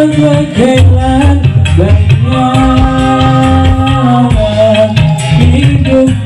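A man singing live into a microphone over a backing song with drums, played loud through a PA rig of 15-inch top speakers and single 18-inch subwoofers driven by a class D amplifier. He holds one long note in the middle.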